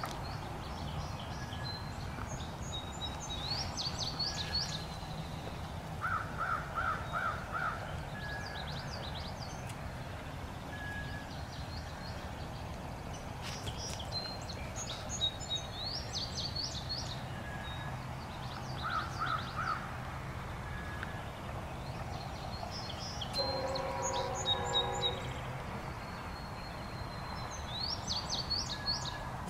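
Songbirds chirping and calling over a steady low rumble, with a bird giving quick runs of four or five calls twice. About 23 seconds in, a distant train horn sounds a chord of several notes for a second or two.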